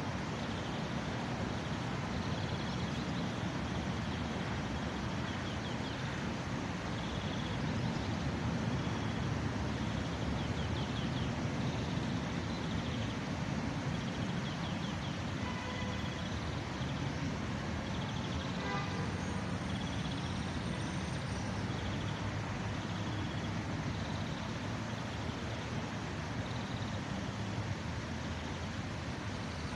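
City street ambience: a steady wash of traffic noise with a low rumble, and short high chirps now and then.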